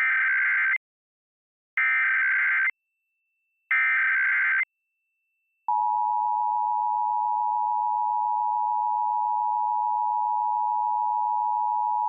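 Emergency Alert System tones: three short bursts of SAME digital header data, each about a second long with about a second between them. Then, a little under halfway through, the steady two-tone EAS attention signal comes on and holds, marking the start of an emergency alert.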